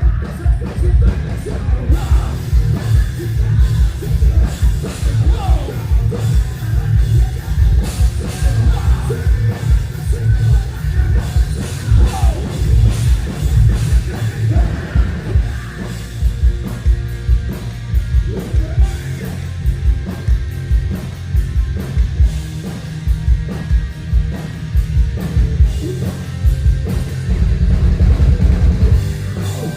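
Loud rock band playing live: a driving drum kit and heavy bass and guitar, with a singer over it.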